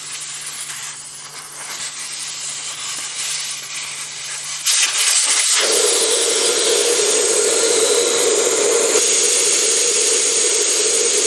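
Air escaping from a motorcycle tyre's valve stem as the valve core is removed to deflate it: a faint hiss at first, then, about four and a half seconds in, a sudden loud, steady rush of air as the core comes free and the tyre, inflated to around 30 psi, empties.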